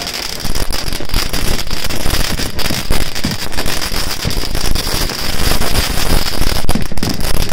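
Dense New Year's fireworks and firecrackers going off continuously, many rapid, overlapping cracks and bangs, with a steady high hiss running underneath.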